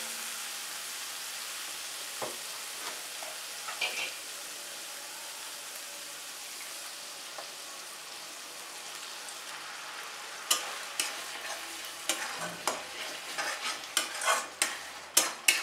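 Onion and spice masala sizzling steadily in a metal kadai, the sizzle softening about halfway through. From about ten seconds in, a metal spatula scrapes and knocks against the pan in quick strokes as tomato purée is stirred into the masala.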